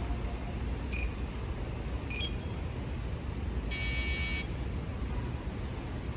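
Steady low rumble of city street traffic, with two short high beeps about one and two seconds in and a longer, higher-pitched electronic beep near the middle.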